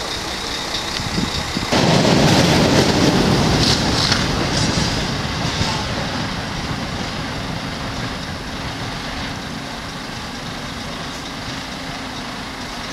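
Heavy fire engine's diesel engine running. It gets suddenly louder a couple of seconds in, then fades steadily as the truck moves off.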